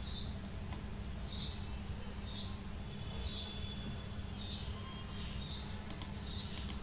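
A short, high, falling chirp repeating about once a second over a low steady hum, with a few sharp clicks near the end.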